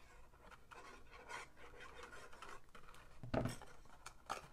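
Faint scratching and rustling of cardstock being handled and glued with a liquid glue bottle, with a louder soft knock about three seconds in and a smaller one near the end.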